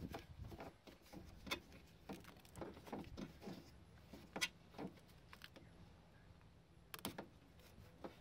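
Faint rustling with scattered small clicks and taps, a few sharper than the rest: hands working a vehicle wiring harness and pulling at its stretchy wrapping tape.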